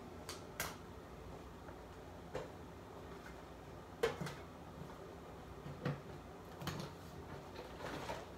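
Scattered light clicks and knocks of makeup items being picked up and set down, about seven in all, the sharpest about four seconds in.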